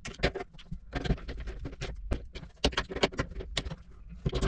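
A quick, irregular run of small clicks and taps from a screwdriver and metal parts working on a rudder angle sensor and its arm while the sensor's zero position is being adjusted.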